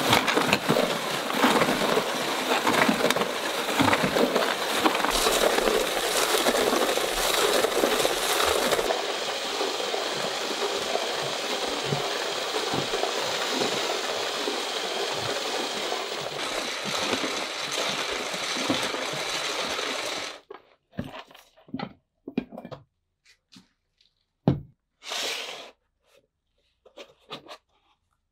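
Antique Frost King hand-crank ice cream maker being churned by a cordless drill on its crank: a steady grinding rattle of the gearing and the ice in the wooden bucket that cuts off suddenly about twenty seconds in. A few light knocks and clicks follow.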